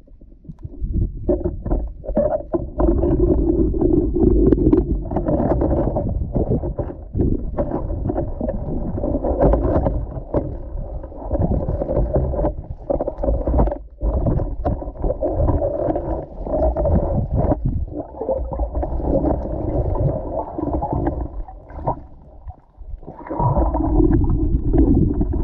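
Muffled underwater noise heard through a GoPro's waterproof housing: water moving and gurgling, with many knocks and clicks as the octopus's arms and the speargun touch the camera.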